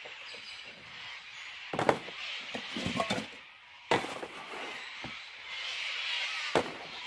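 Camping gear being handled at a folding table: scattered sharp knocks and clunks, about five in all, over a steady high-pitched background hiss.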